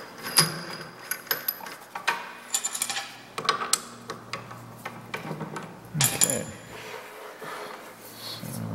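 Sharp metallic clinks and rattles of a twist drill being fitted into a drill press chuck and the chuck twisted tight by hand. There is a clink about half a second in, a run of clicks through the second and third seconds, and a louder clatter about six seconds in.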